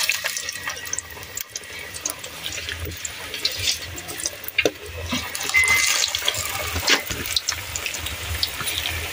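Pakora batter frying in hot oil in an aluminium kadhai: a steady sizzle with many small crackles as pieces are dropped in.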